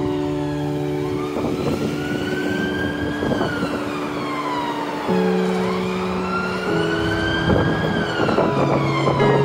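Emergency vehicle siren wailing, rising and falling slowly twice in pitch, over held chords of background music.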